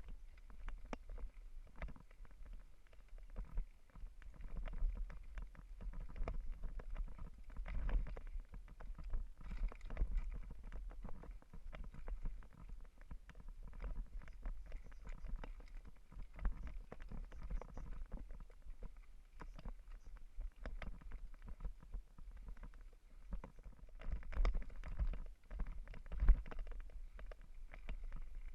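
Mountain bike rattling and bumping over a rough dirt trail: a constant jumble of irregular knocks and clatters over a steady low rumble, with a sharp loud knock about 26 seconds in.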